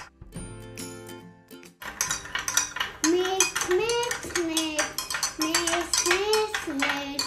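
A metal spoon clinking rapidly against the inside of a drinking glass as water with soda is stirred, starting about two seconds in after a quieter stretch. From about three seconds in, a simple tune plays along with the clinking.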